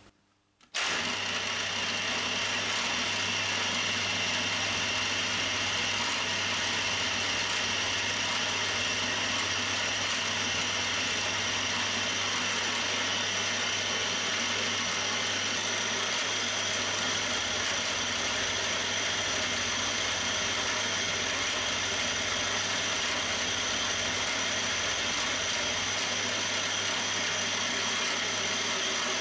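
Milling machine running steadily, a small end mill cutting cross-hatch serration grooves into a metal vise soft-jaw blank; the sound starts about a second in and holds an even, unchanging pitch and level.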